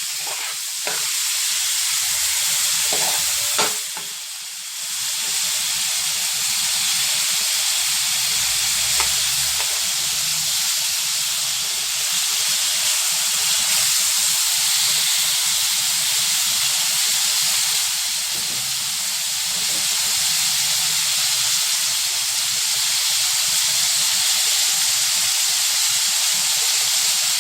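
Food frying in a pan: a steady sizzle, with a few light clicks and a brief dip about four seconds in.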